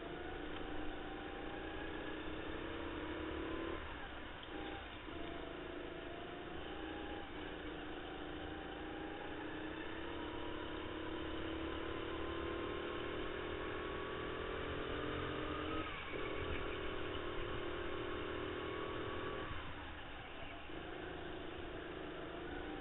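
A racing go-kart's motor heard from on board, its pitch climbing steadily again and again and dropping away briefly several times.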